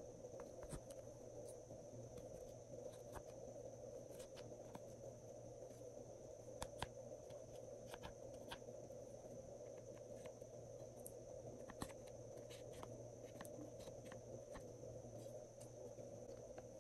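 Faint, scattered clicks and scrapes of a plastic spatula digging pressed eyeshadow out of palette pans, over a steady background hum.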